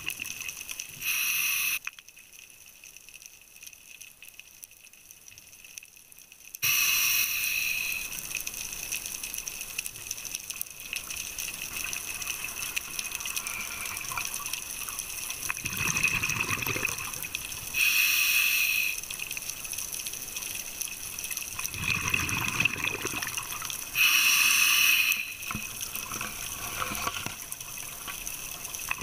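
Scuba diver's exhaled bubbles rushing past an underwater camera housing in loud bursts of about a second, several times, with a steady underwater hiss between them.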